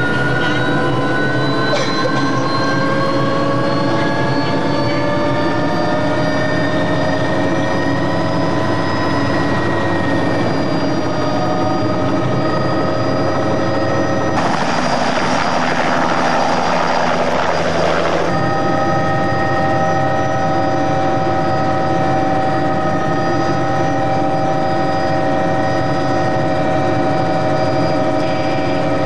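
Helicopter engine and rotor heard from inside the cabin during take-off, a whine that rises in pitch over the first several seconds and then holds steady. A few seconds of rushing noise cover it about halfway through.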